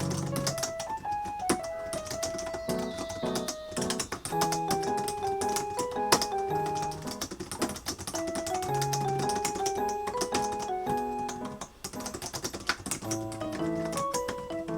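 Piano-led background music with the rapid, irregular key clicks of someone typing on a keyboard over it.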